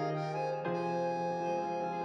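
Background music of held, sustained chords, with a new chord coming in under a second in.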